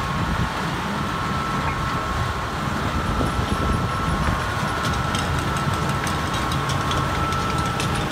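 Log flume machinery running: the water pumps and lift conveyor make a steady hum with a steady high whine over rushing water. Light rapid clicking joins from about halfway through.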